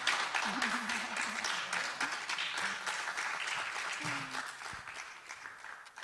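Audience applauding, growing steadily fainter and thinning out toward the end, with a few voices calling out among the crowd.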